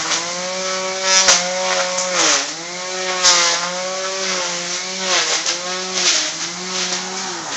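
Gas string trimmer's small two-stroke engine running at high revs, its pitch dipping briefly several times as it bogs under load, then the engine note stops near the end.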